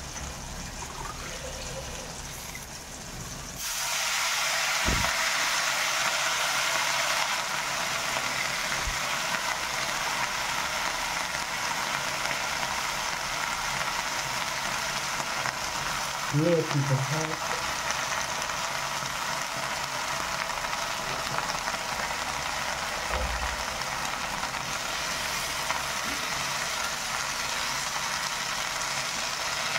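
Wet fenugreek greens frying in hot oil in a wok: a loud sizzle breaks out suddenly about four seconds in and carries on as a steady frying hiss while the leaves cook and are stirred.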